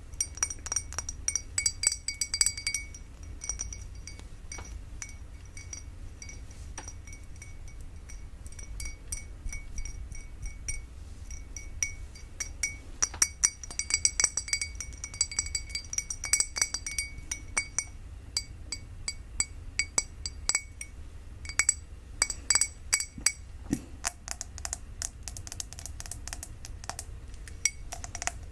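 Fingers tapping a drinking glass in quick flurries, each tap ringing with clear, high glassy tones, with short pauses between the runs of taps.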